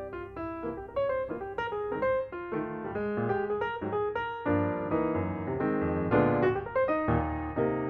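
Background piano music, a steady run of notes that grows fuller and louder about halfway through.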